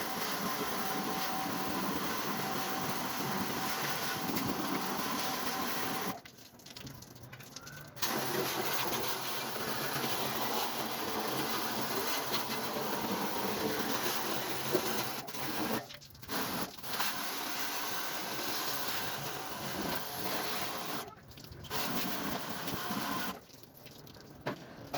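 A pressurised water jet spraying steadily as an air conditioner is washed during servicing. The spray stops abruptly four times: a two-second pause about six seconds in, a brief one near the middle, another about 21 seconds in, and one near the end.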